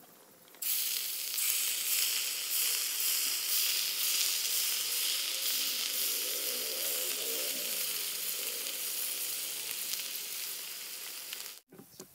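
Cauliflower-and-potato fritters deep-frying in hot oil: a steady, hissing sizzle that starts suddenly about half a second in and cuts off just before the end.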